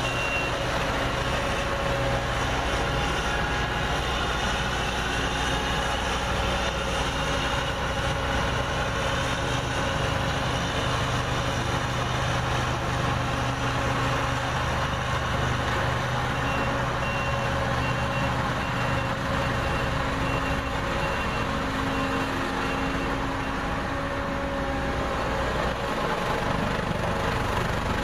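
The 2015 Hyundai HR70C-9 single-drum roller's 84 hp Perkins diesel engine runs steadily as the machine drives around. Its back-up alarm beeps briefly at the start and again in a steady series for several seconds after the middle.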